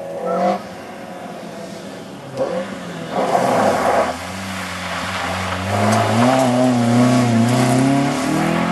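BMW E30 rally car's engine revving hard on a gravel stage. Its pitch climbs and dips with the throttle as it drives through the bend, and it gets louder about three seconds in and stays loud through the second half.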